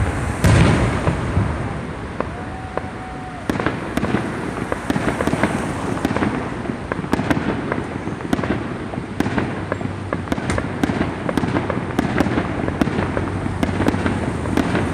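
Fireworks display: a heavy boom about half a second in, then from about three and a half seconds on a dense, continuous run of sharp crackling pops.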